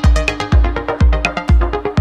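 Electronic dance music with a heavy kick drum on a steady beat, about two beats a second.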